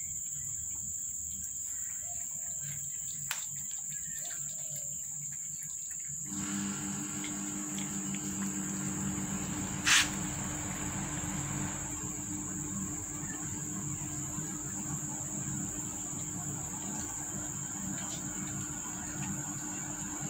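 Steady high-pitched drone of insects such as crickets. A low hum and more general noise join about six seconds in, and a single sharp knock, the loudest sound, comes about halfway through.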